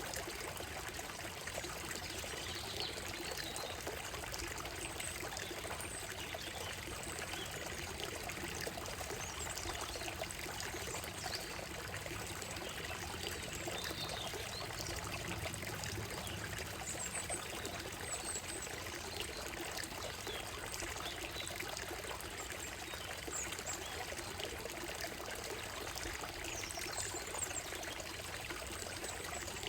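Shallow stream running steadily over a gravel and stone bed, trickling and splashing. Faint, scattered high bird chirps come through the water now and then.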